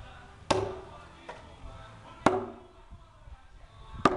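Firewood being chopped: three sharp strikes into the wood, just under two seconds apart, each with a short ringing tone.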